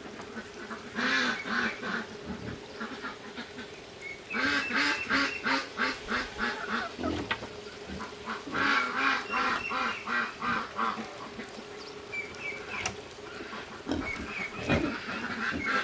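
Ducks quacking in rapid runs of calls, several bursts a few seconds apart, with quieter gaps between them.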